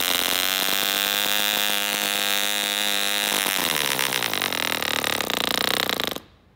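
Allen Mercury AM 10 1 cc model diesel engine turning an 8x4 propeller, running rich and slow on its first run. It holds a steady speed for about three seconds, then slows with falling pitch and stops about six seconds in.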